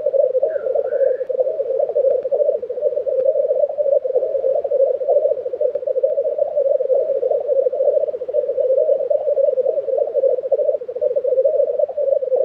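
Black grouse cocks calling at a spring lek: a steady, rolling, fast-pulsing chorus as the males display and challenge each other. A brief higher call cuts in about half a second in.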